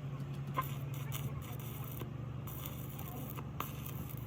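A machine running with a steady low hum, with a few light clicks and taps over it.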